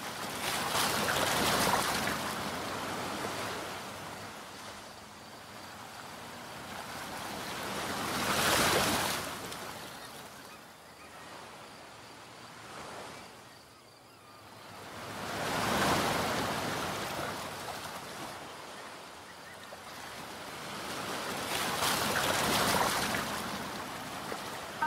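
Waves washing onto a shore: the surf swells up and falls away about every seven seconds, four times in all.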